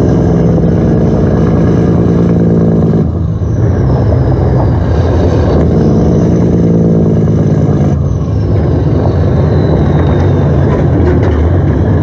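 Heavy truck engine running steadily and loudly, its note changing in steps every few seconds.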